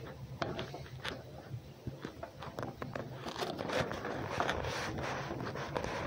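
An animal moving about in and around a straw-lined wooden den box: dry straw rustling, with light scratches, taps and footfalls on the boards. The many short crackles are busiest about halfway through.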